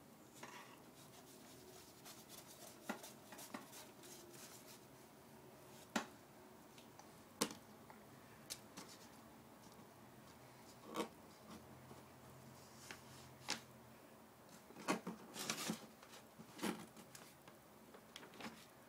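Faint scattered taps and scrapes of a child's paintbrush and hand dabbing and rubbing on paper, with a few short sharp clicks and brief rubbing sounds.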